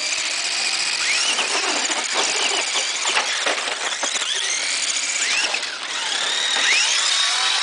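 Small electric motors of two Tamiya Lunchbox RC monster trucks whining as they drive, with repeated rising whines as they accelerate and many scattered clicks. Near the end two long whines rise and hold high.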